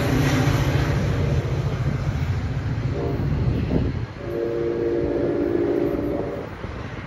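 EMD GP40PH-2B diesel locomotive pulling away, its engine rumble fading over the first four seconds. Its multi-note horn sounds a short blast about three seconds in, then a longer blast of about two seconds.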